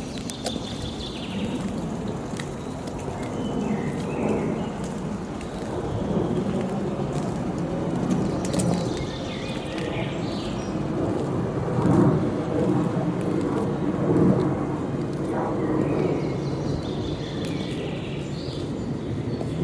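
Birds chirping now and then over a steady low rumble of outdoor background noise.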